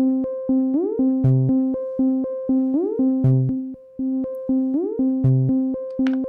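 Moog Mother-32 semi-modular analog synthesizer playing a looping eight-step sequence of short eighth notes at 120 BPM, clocked by a step sequencer. The pattern repeats every two seconds, and each repeat opens with a note gliding up in pitch.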